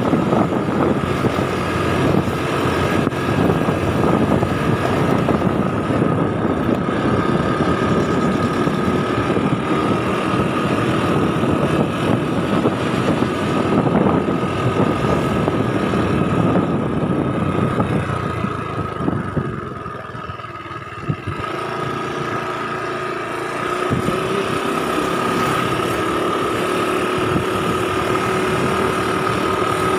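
Motorcycle engine running steadily while riding, over wind and road rush. It eases off and quietens for a few seconds about two-thirds of the way through, then picks up again.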